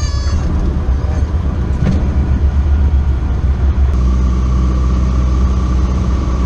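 Small single-engine propeller airplane's engine and propeller droning, heard from inside the cabin, with an uneven rumble while it rolls on the runway. About four seconds in the drone turns steadier and stronger as the airplane lifts off and climbs.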